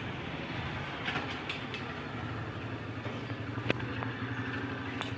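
A steady low engine hum, like a motor vehicle running nearby, with a few short clicks over it and one sharper snap about three and a half seconds in.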